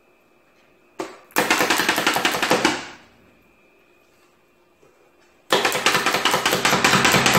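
Hand-pressed plunger food chopper, pumped to chop cauliflower fine. There are two runs of rapid clattering: the first starts about a second in and lasts about a second and a half, and the second starts about five and a half seconds in.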